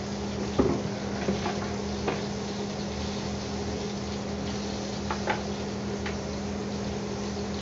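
Chicken breast frying in a pan, a steady sizzle, with a steady low hum underneath. A few sharp clacks of kitchen utensils being handled on the counter break in, the loudest about half a second in and a pair about five seconds in.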